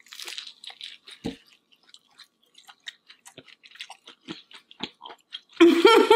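Two people chewing crispy fried food, with many small sharp crunches and crackles. A woman's voice comes in briefly near the end, louder than the chewing.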